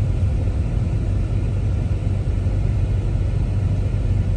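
Steady low rumble of a vehicle running, with its engine and road noise holding an even level.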